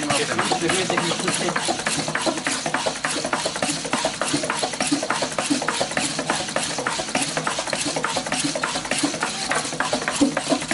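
Oncilla quadruped robot trotting, its feet tapping and legs clattering in a steady rhythm of about four taps a second, over a steady hum from its joint motors.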